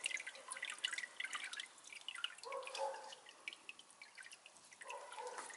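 Faint, irregular dripping of water: many small separate drops.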